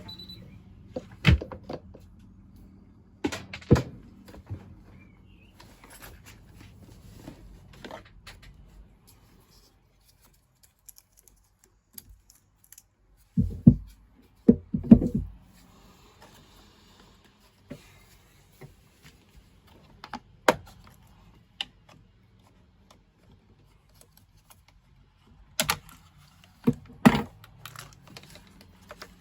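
Scattered clicks, taps and knocks of tools and hard parts being handled during a repair. There are clusters of louder knocks about halfway through and again near the end.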